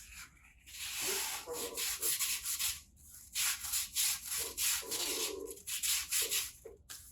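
Sandpaper rubbing over aluminium in repeated back-and-forth strokes with short pauses between them, as the motorcycle exhaust is hand-sanded during restoration.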